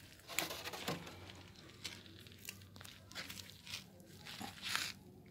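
Thin plastic water bottle crinkling and crackling in short, irregular bursts as it is handled and tipped out.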